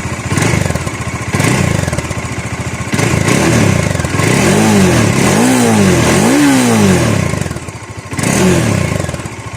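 Bajaj Dominar 400's single-cylinder engine revved through its stock exhaust: a pulsing idle broken by quick revs, three rises and falls in pitch in a row in the middle and another near the end, dropping back to idle between.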